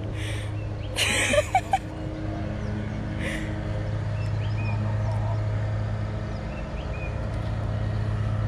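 Steady low engine hum throughout, with a brief loud burst of noise and voice about a second in.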